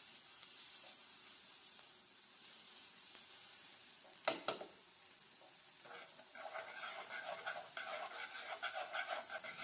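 Minced garlic frying in hot oil in a nonstick pan, a faint high sizzle, with a single knock about four seconds in. From about six seconds wooden chopsticks stir the garlic through the oil, adding a run of fine scraping ticks.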